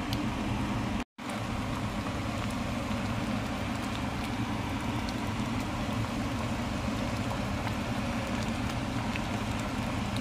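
Pot of mung bean soup with sweet potato leaves boiling, bubbling and popping steadily over a low steady hum. The sound cuts out briefly about a second in.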